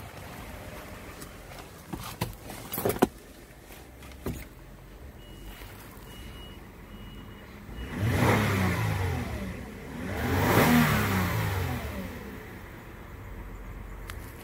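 2006 Toyota Avalon's 3.5-litre V6 idling and revved twice, about eight and ten and a half seconds in, each rev rising and falling back to idle. A repeated electronic chime beeps four times just before the first rev, and a few sharp knocks sound about two to three seconds in.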